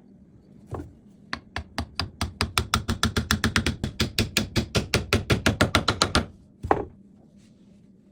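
A run of sharp knocks, sparse at first and then quickening to about five a second, stopping abruptly, followed by one last knock near the end.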